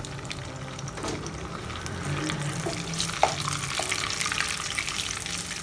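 Oil and a block of margarine sizzling in a nonstick karahi as the margarine melts, stirred with a wooden spatula that gives a few light knocks against the pan.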